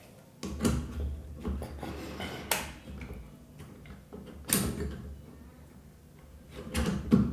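Tilta matte box being handled and fitted onto a camera lens: scraping and a series of sharp clacks as it is slid and pressed into place, the loudest near the end.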